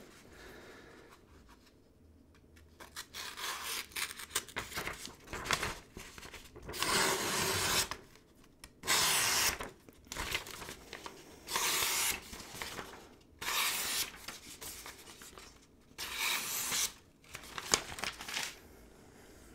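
A freshly honed plane blade slicing a sheet of paper to test its sharpness: soft rustling at first, then five or six louder papery slicing strokes, each about a second long. The blade cuts cleanly, a sign the edge is sharp.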